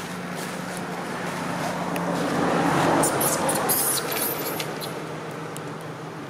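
A motor vehicle passing by: a low hum and rushing noise swell to a peak about three seconds in, then fade away.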